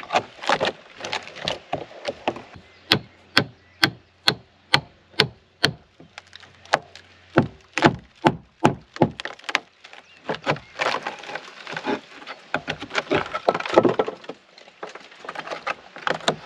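Metal bar knocking and levering at the rotten wooden hull timbers of an old boat: sharp knocks on wood, at first irregular, then a steady run of about two a second, followed by a stretch of denser cracking and splintering as the decayed wood gives way.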